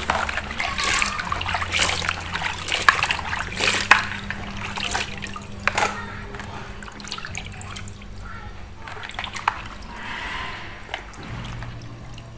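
Water splashing and sloshing as hands rinse strips of coconut flesh in a plastic basin, with many quick splashes in the first half that thin out later. A faint low steady hum runs underneath.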